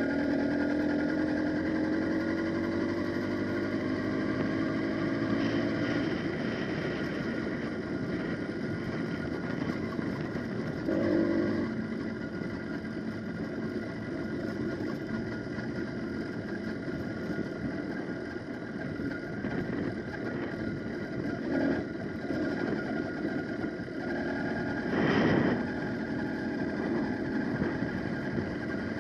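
Wildcat PK80 80cc two-stroke bicycle engine running under way, its pitch rising over the first few seconds as the bike picks up speed, then holding steady under wind and road noise. A brief louder burst comes about eleven seconds in and another, stronger one near the end.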